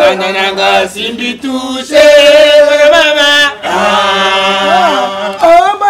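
Several voices chanting a song together without instruments, with long held notes.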